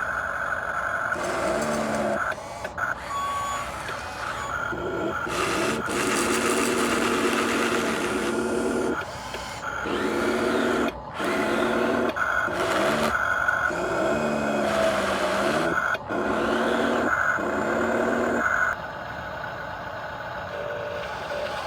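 Small electric motors of a radio-controlled construction toy whining in short stop-start runs, now and then rising and falling in pitch, over a steady high tone.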